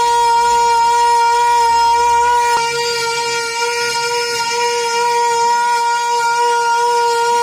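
Flash flood warning siren sounding a loud, steady tone that holds at one pitch.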